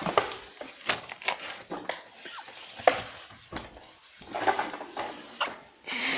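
Irregular knocks, clatters and scrapes of someone clambering through debris, with a longer scraping rustle near the end.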